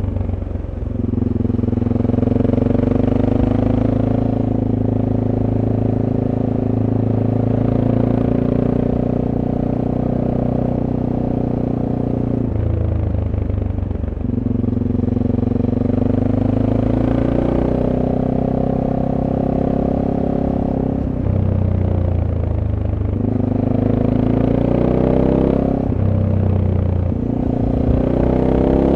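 SWM Superdual T's single-cylinder engine on its stock exhaust, heard from on board while riding. It pulls steadily, and several times the note drops briefly, then climbs again as the bike accelerates.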